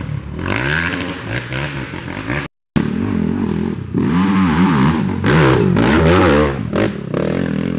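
Racing ATV engines revving hard, the pitch rising and falling repeatedly as the throttle is worked. The sound cuts out for a moment about two and a half seconds in, then the revving carries on.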